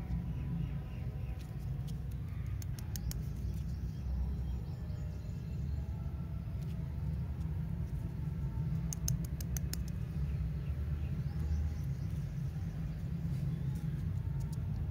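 Lollipop wrappers crinkling and crackling as fingers handle them, with clusters of sharp crackles about three seconds in and again around nine to ten seconds, over a steady low rumble.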